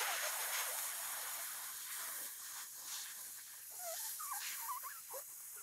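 Shitali breath: a long hissing inhale drawn in through the rolled tongue against resistance, slowly fading, with a few small squeaky whistles of air and saliva near the end.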